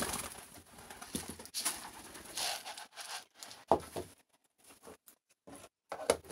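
Pigeons moving about and pecking on wooden boards: a few seconds of rustling, then a few sharp separate taps.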